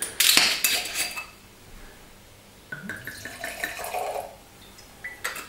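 A wine bottle being opened, with a short noisy rasp in the first second, then wine poured into a wine glass for about a second and a half, with a small click near the end.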